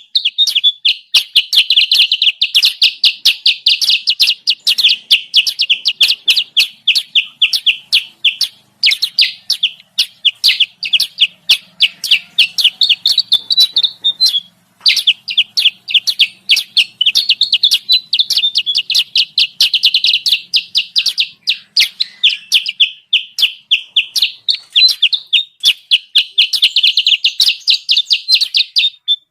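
Kutilang sutra bird-lure call: a rapid run of sharp, high chirps, several a second, breaking off briefly about 9 and 15 seconds in. It is a pikat call, played to draw wild kutilang sutra down to the trapper.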